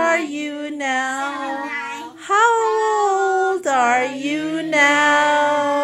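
A child singing loudly in long, held notes, several phrases sliding up in pitch as they begin.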